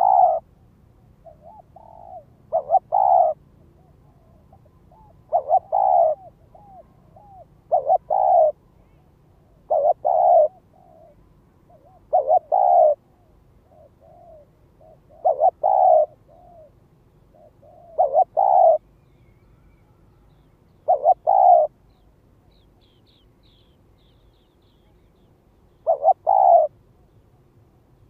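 Spotted dove cooing: a loud, low two-part coo repeated about every two and a half seconds, with softer short coos between the phrases in the first half and a pause of about four seconds near the end. It is a decoy dove's urging call, the kind used to draw in wild doves.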